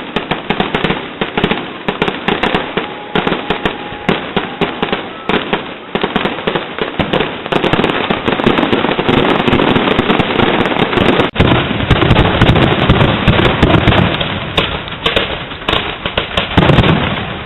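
Fireworks going off in a dense, continuous barrage of rapid bangs and crackles, loud throughout, with one brief break about eleven seconds in.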